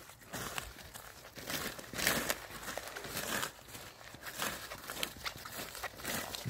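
Flowers and leafy stems crushed underfoot: uneven rustling and crunching as feet stomp through the flower bed, with crackling snaps of stalks.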